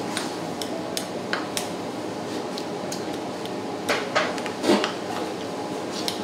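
Tableware clinking against dishes during a meal: scattered light clicks and taps, a few ringing briefly, with a small cluster about four seconds in, over a steady background hum.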